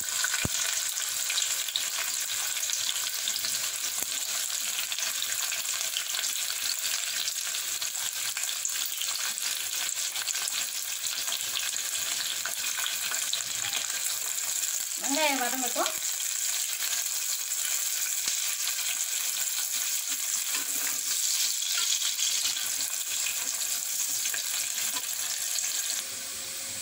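Sliced onions sizzling steadily in hot oil in a pressure cooker, stirred with a spatula partway through.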